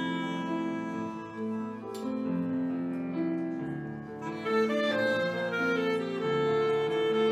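Small jazz band playing live: a clarinet carries the melody over a Yamaha CP4 Stage piano, with violin, bass guitar and drums. There is one sharp click about two seconds in.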